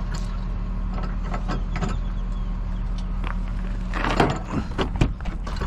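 Heavy equipment engine running steadily, with scattered metal clanks and knocks from work on the drill string tooling; a louder clatter about four seconds in and a sharp clank about a second later.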